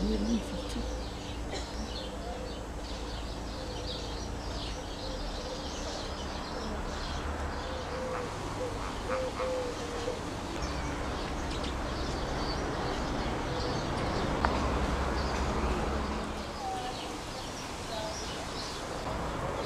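Many small birds chirping in short, high calls, scattered throughout, over a steady low rumble.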